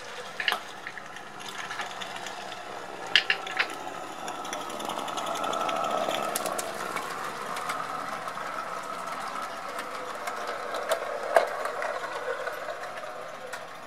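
Live steam 16 mm scale model of a Baldwin WD 4-6-0 locomotive running along its track, growing louder as it passes about six seconds in and then fading, with a few sharp clicks along the way.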